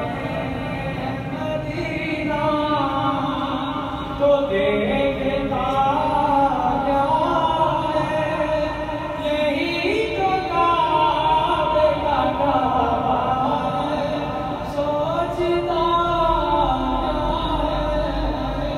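A man singing a naat, an Urdu devotional poem, unaccompanied into a microphone, in long held lines whose pitch slides and bends.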